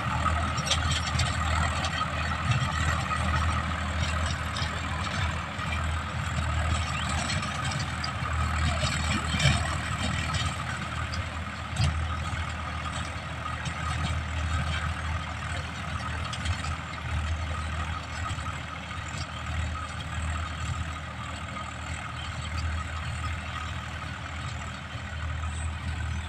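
TAFE tractor's diesel engine idling steadily.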